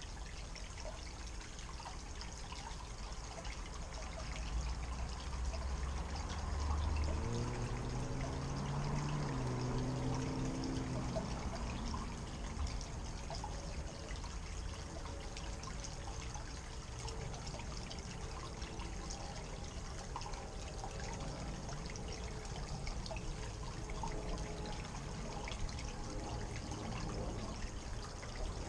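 Water steadily trickling and splashing down a small rock waterfall into a garden pond. From about seven to twelve seconds in, a low drone rises in pitch in a few steps, then fades back under the water.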